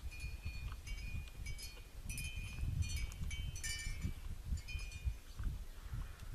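A wind chime tinkling in the breeze, in scattered clusters of high ringing notes, over a low wind rumble on the microphone.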